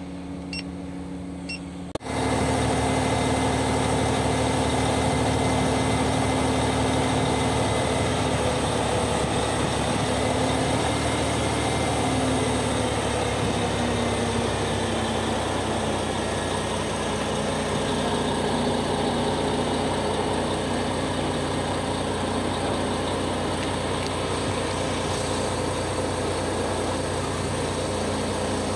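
Short beeps about once a second from the crane cab's control panel. From about two seconds in, the Liebherr LTM 1120-4.1 mobile crane's diesel engine and hydraulics run loudly and steadily while the counterweight is lowered.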